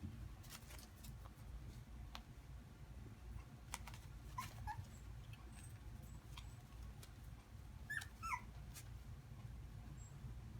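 Young Havanese puppy whimpering: a few short, high, squeaky whines, some around the middle and a pair near the end, with faint scattered clicks.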